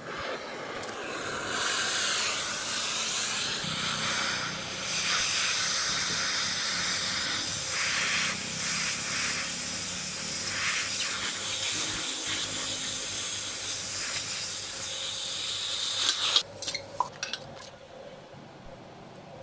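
Oxy-fuel gas cutting torch hissing steadily as it cuts through steel plate, stopping abruptly about three-quarters of the way through, followed by a few clicks.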